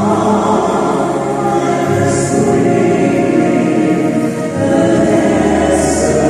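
Choir singing with long held chords.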